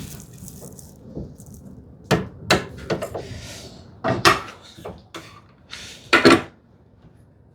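A clamp being set and fitted against a wooden workpiece on a bench: a run of sharp knocks and clatters, the loudest near the end.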